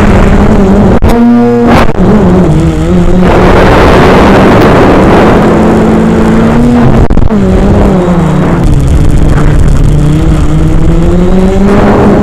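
Quadcopter's brushless motors and propellers whining, heard from the onboard camera, the pitch sliding up and down as the throttle changes, over heavy wind rush on the microphone.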